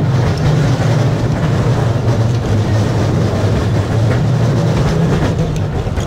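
Electric Sóller tram running along its track, heard from aboard the car: a steady low hum with wheel-on-rail running noise.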